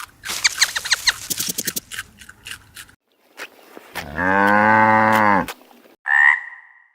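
A run of rapid clicks and rattles for about three seconds, then a cow mooing once, a low steady call lasting about a second and a half. A short high-pitched animal call follows near the end.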